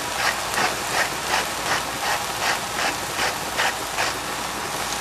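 Doll-shaped seasoning grinder worked over a pan, about three short grinding strokes a second that stop near the end, over the sizzle of eggplant cubes frying in a saucepan.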